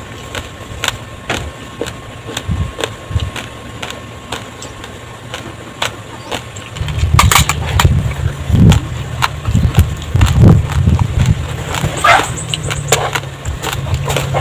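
Raw glutinous rice grains crunched between the teeth, close up, with sharp crackling clicks throughout. About seven seconds in, a louder low rumble joins the crunching and holds.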